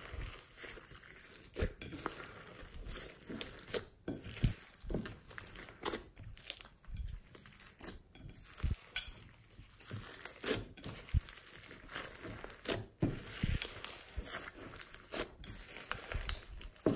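Hands squishing and kneading a large mass of glossy slime mixed with floam beads: irregular squelching with frequent short crackles and clicks.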